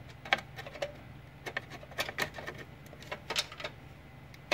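Irregular plastic clicks and knocks of cables and a small connector plug being handled among the wiring inside a PC case, about ten in all, over a low steady hum.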